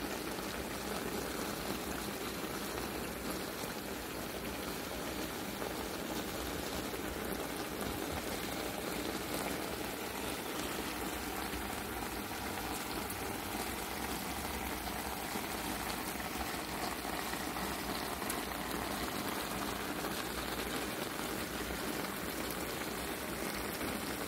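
Chicken breasts, bell peppers and cherry tomatoes cooking in a stainless steel skillet, their juices sizzling with a steady, even hiss. The sound cuts off suddenly at the end.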